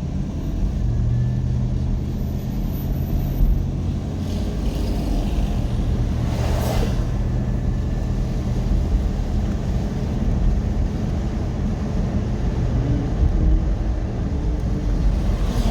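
Car engine and road noise, a steady low hum, with a brief whoosh about six and a half seconds in.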